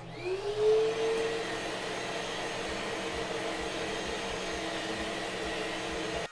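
Vacuum cleaner switched on to pick up metal shavings: its motor whines up to speed in the first second, then runs steadily with a rushing airflow, and cuts off suddenly at the end.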